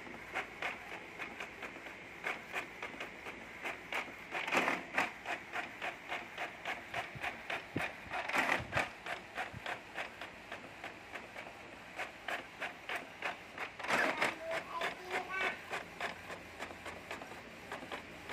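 Epson L550 inkjet printer printing a page: the print head carriage shuttles back and forth in an even pulse of about three strokes a second, with a few louder passages of the paper feed.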